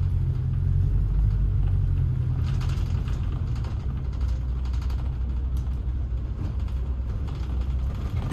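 Steady low rumble of a moving road vehicle's engine, heard from on board, with scattered light rattles and clicks a few seconds in.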